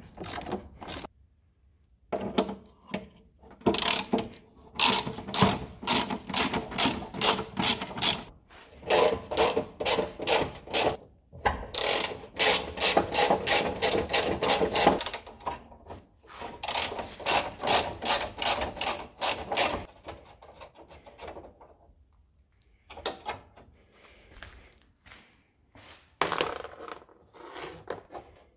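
Hand socket ratchet clicking in runs of rapid clicks with short pauses between them, as bolts are wound out of an old car body.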